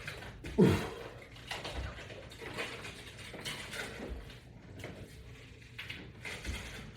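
Sounds of a man exercising with resistance bands: breathing and irregular soft thumps and rustles, with a louder short falling sound about half a second in.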